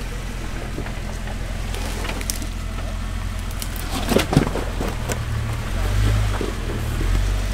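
Off-road 4x4 vehicle's engine running at low revs, with a quick cluster of knocks and clatters about four seconds in, then the engine picking up revs and getting louder.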